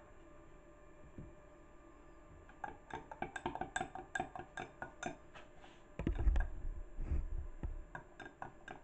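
Melt-and-pour soap doughnuts being pushed out of a flexible silicone mould on a kitchen worktop. After a quiet start, an irregular run of light clicks and taps begins about two and a half seconds in, with heavier low thuds for about a second and a half from around six seconds in.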